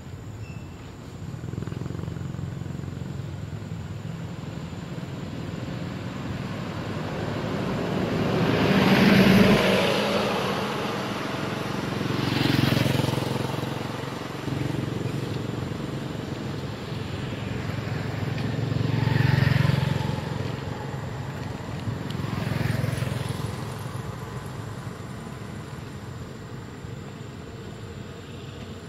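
Motor vehicles passing on a road one after another, each swelling and fading away, four times; the loudest passes about nine seconds in.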